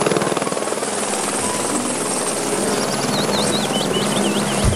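Light turbine helicopter hovering, its main rotor chopping fast and steadily over a steady turbine whine.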